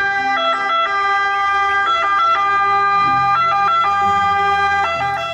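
Ambulance two-tone siren alternating between two pitches, with a low vehicle rumble beneath it.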